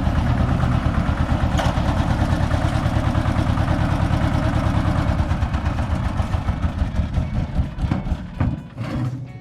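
Konma MT-S411D harvester (rice thresher) running with a fast, steady knocking rhythm, then slowing and stopping near the end. The owner suspects the grain-and-straw sorting section of causing its abnormal rattling 'dadada' noise.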